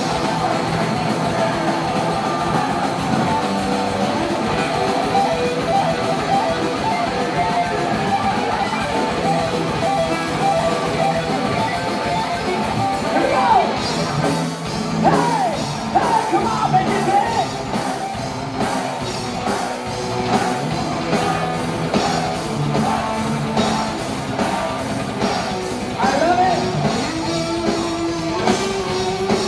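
Metal band playing live: distorted electric guitars, drums and keyboard, loud and continuous. About halfway through, the rhythm turns to rapid, evenly spaced hits.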